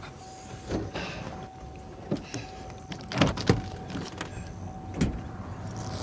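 Clunks and rustling as a pickup truck's bed cover and its load are handled: about five separate knocks spread across a few seconds, over a low rumble and a faint steady high tone.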